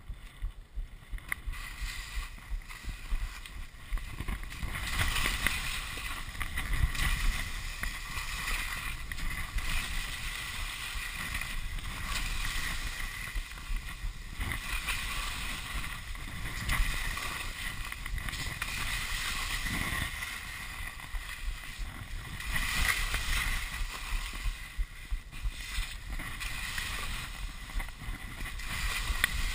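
Telemark skis scraping and hissing over firm snow through a run of turns, the hiss swelling and fading with each turn, over a low rumble of wind on the chest-mounted camera's microphone.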